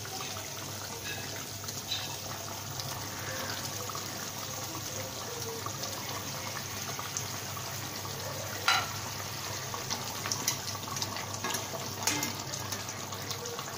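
Fish curry gravy boiling in a kadai, a steady bubbling and spluttering, with a few knocks of a spatula against the pan in the second half.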